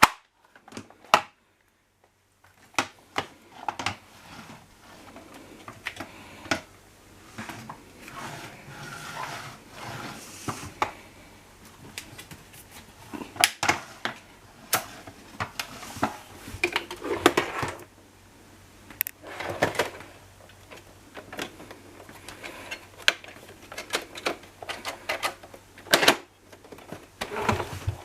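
Irregular sharp plastic clicks and knocks, with short stretches of rubbing and rustling, as a Miele Cat & Dog vacuum cleaner's parts are handled and fitted together. The sharpest clicks come about a second in, about halfway through, and near the end.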